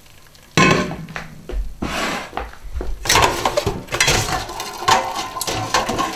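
Stainless steel pots clanking: a strainer insert knocking against the stockpot it sits in as it is gripped and lifted. A sharp clank about half a second in is the loudest sound, followed by a run of irregular metal knocks and rattles.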